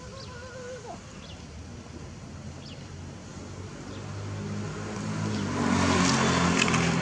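A motor engine running, growing steadily louder over the last few seconds, with a short wavering squeal right at the start and a few sharp knocks near the end.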